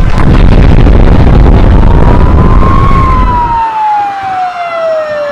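A loud, noisy rumble that cuts off suddenly a little past halfway, under an emergency-vehicle siren wailing slowly up and down. The siren carries on alone after the cut.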